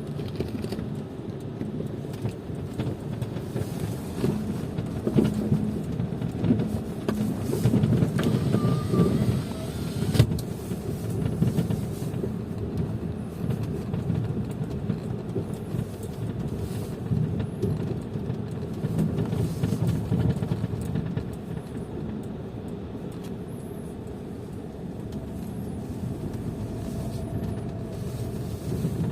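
A car running with a knocking noise, over a rough, uneven low rumble.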